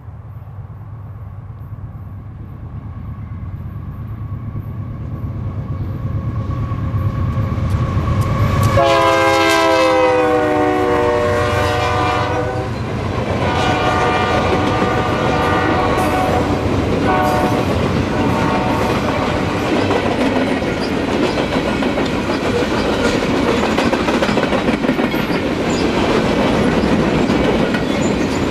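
Union Pacific AC4400CW and Kansas City Southern ES44AC diesel locomotives approach with a rumble that grows steadily louder, then sound a long multi-note horn blast about nine seconds in, its pitch dropping as they pass. After the horn, loaded flatcars roll past with steady wheel clatter on the rails.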